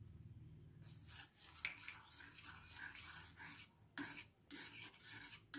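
Steel spoon stirring a thin buttermilk mixture in a bowl: faint, uneven scraping strokes of the spoon against the bowl, with a couple of slightly louder scrapes near the end.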